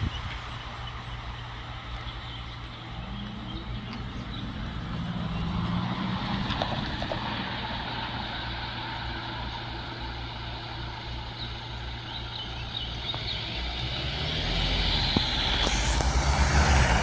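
Vehicle engine running with a steady low hum and a slowly gliding tone, growing louder near the end.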